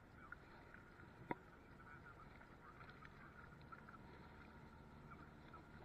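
Near silence: faint outdoor background, with one sharp click just over a second in.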